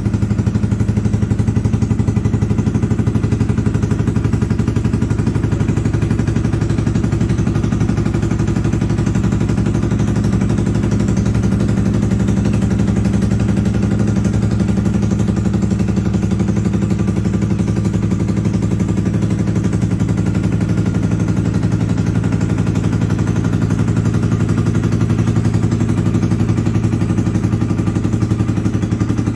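2014 Yamaha YZF-R125's single-cylinder four-stroke engine idling steadily through an aftermarket Lextek exhaust, running evenly with no knocks or bangs.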